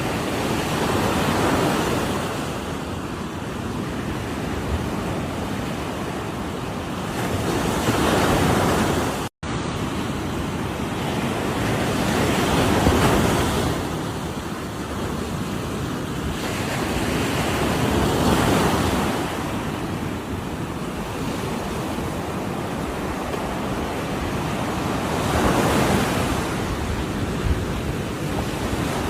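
Ocean surf breaking on a shore, a steady wash that swells with each wave every few seconds. There is a split-second dropout about a third of the way through.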